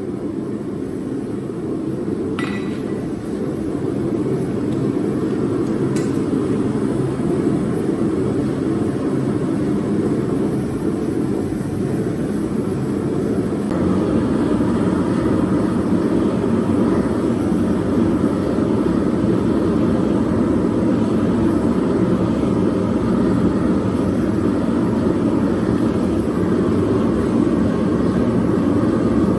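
Steady machine roar in a metalworking shop, growing louder about halfway through, with two light metallic clinks in the first few seconds.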